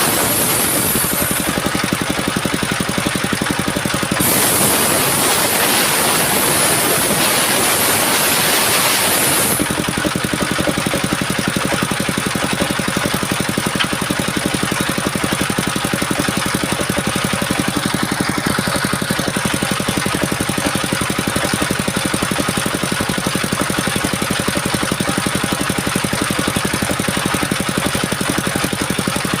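Engine of a mobile sawmill running steadily. A high hiss rides over it, drops out briefly about a second and a half in, returns, and stops about ten seconds in, leaving the engine running on its own.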